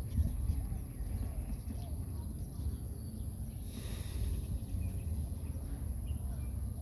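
Outdoor ambience: a steady low rumble with a thin, steady high-pitched insect hum, and a brief rustle of bamboo leaves about four seconds in as the baby macaque shifts its grip.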